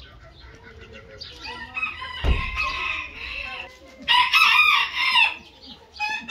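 Chickens clucking softly, then a rooster crowing loudly twice, about two seconds in and again about four seconds in, with a low thump just before the first crow.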